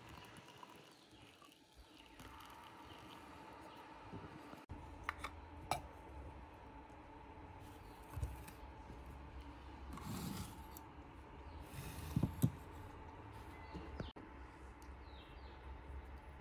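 A few light clinks and knocks of metal and glass as a glass French press of tea is handled and its plunger pressed down.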